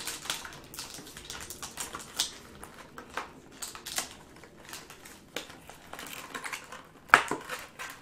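Hands working a doll out of its thin plastic packaging insert and peeling tape: a run of irregular small clicks and crackles of plastic, with one sharper snap about seven seconds in.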